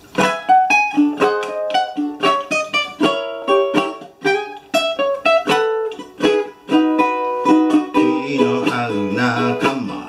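Solo ukulele playing a lively melody of quick plucked single notes and chords. The player says the ukulele is not quite in tune.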